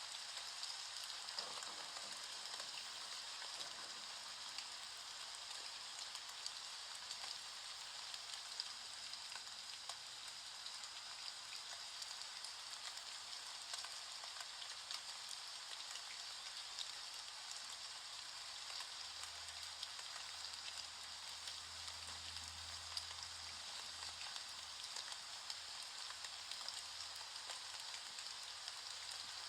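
Steady rain, an even hiss of dense fine patter from many drops. A faint low hum comes in for a few seconds past the middle.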